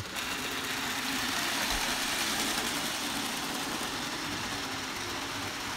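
HO scale model trains running on the layout track: a steady whir of small electric locomotive motors and wheels rolling on the rails, even in level throughout.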